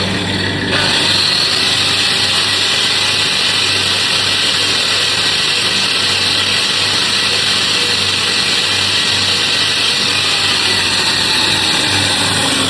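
Angle grinder switched on, spinning up within the first second, then grinding steadily to clean up a fresh weld on steel.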